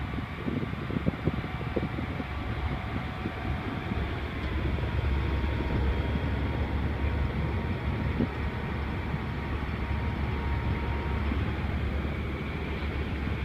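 Tractor engine running under load as it drives a rear-mounted train-wheel packer over a corn silage pile, with a few knocks in the first couple of seconds. A deep rumble grows louder about four seconds in and holds steady.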